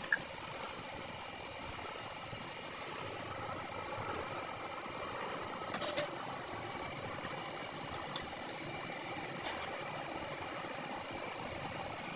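A steady mechanical hum, like an engine or machine running, with a few sharp clicks: one at the start, one about six seconds in, and two more later.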